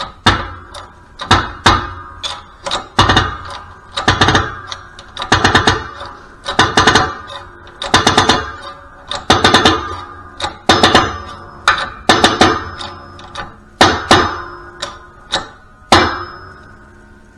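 Hand-worked shop press pushing a new bearing into a Harley five-speed transmission drive gear: each pump of the handle gives a rattling metallic clack, mostly in pairs, about every second and a half. The pumping stops about a second before the end.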